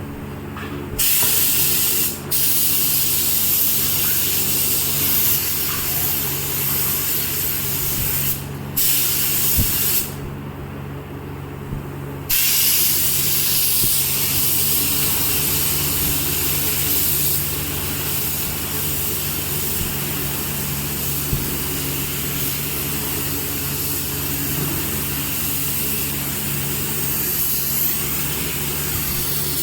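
Woodworking machine's electric motor running steadily, with a high hiss of wood being cut that starts about a second in, breaks off briefly twice and pauses for about two seconds near the middle before carrying on.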